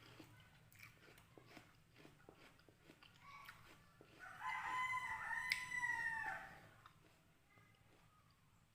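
A rooster crows once, one drawn-out call of about two and a half seconds starting about halfway through; it is the loudest sound here. Before it come faint clicks and crunches of someone chewing.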